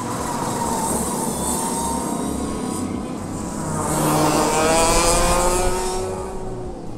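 Racing go-kart running at speed on the track, its engine note swelling as it passes about four seconds in and then fading away.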